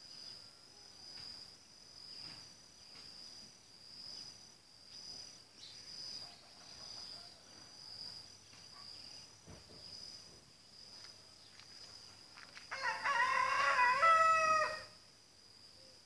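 A rooster crows once near the end, a loud call of about two seconds. Before it, a high insect chirp pulses steadily about once a second.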